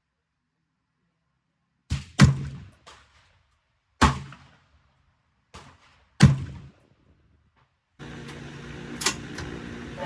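Smith & Wesson M&P15 Sport II AR-15 rifle firing single shots: sharp reports spaced a second or two apart, the loudest about two seconds in. Near the end another shot sounds over a steady background hum.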